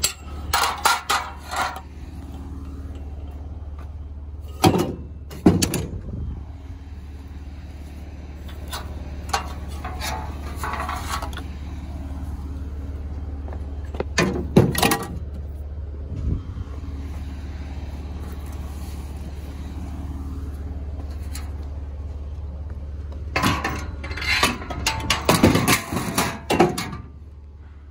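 Scrap metal, a metal frame and lengths of metal tubing, clanking and scraping in bursts as it is handled and loaded into a trailer, with a dense run of clatter near the end. Under it a vehicle engine idles with a steady low hum.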